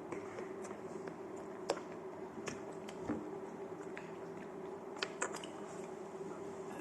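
Eating sounds: scattered short clicks and wet smacks of someone chewing and handling food, over a steady low hum.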